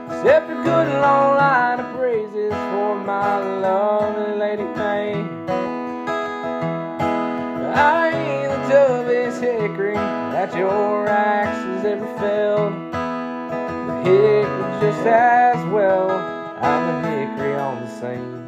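Background music: an instrumental passage of an acoustic country song, with strummed acoustic guitar and a bending lead melody over it.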